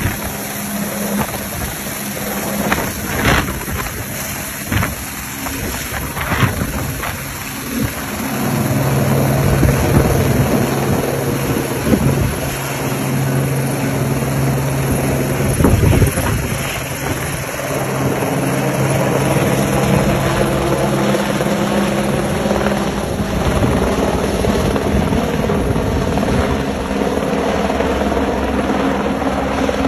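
Helicopter hovering and flying overhead while carrying a load slung on a long cable; its rotor and engine drone steadily, growing louder about eight seconds in.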